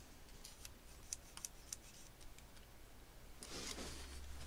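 A few faint light metallic ticks, then a brief soft scrape near the end, as a 0.13 mm feeler gauge blade is worked into the gap between cam and valve on a BMW K1600 engine. The blade slides in: the clearance is within tolerance.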